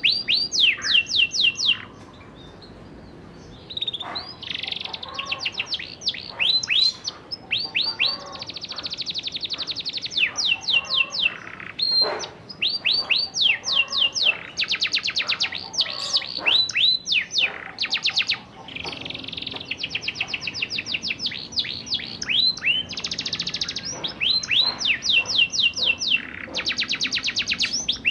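Domestic canary singing: fast rolling trills of rapidly repeated high notes, in bursts broken by short pauses, with one longer pause about two seconds in. This is the canary's 'ngerol' rolling song.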